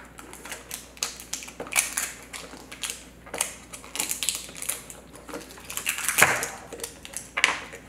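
Small plastic Mash'Ems toy capsules being handled and opened by hand: irregular plastic clicks and crinkling, with a longer, louder rustle about six seconds in.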